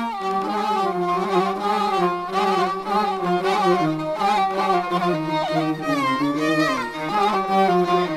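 Upper Egyptian rababa, a bowed spike fiddle, playing a continuous melody that wavers and slides between notes.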